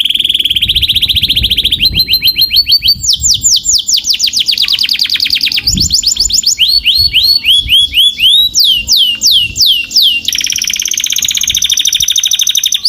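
Domestic canary singing a loud, fast song of rapid trills, switching every second or two between different repeated notes: a buzzy roll, series of rising notes, and sweeping downward whistles.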